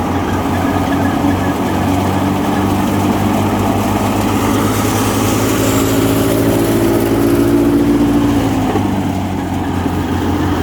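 Super Fine Daska wheat thresher running steadily with its driving engine, a loud, even mechanical drone. A second, higher engine hum joins about four seconds in and fades out after about eight seconds.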